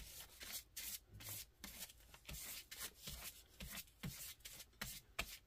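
Flat paintbrush dry-brushing acrylic paint across paper in quick back-and-forth strokes: a faint scratchy swish, about three strokes a second.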